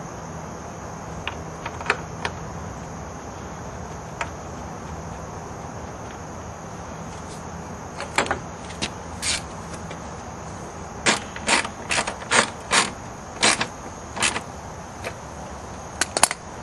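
Short, sharp clicks of a hand tool and fasteners as the plastic splash guard is fastened back into the front wheel well: a few scattered clicks, then a run of them about two a second in the second half.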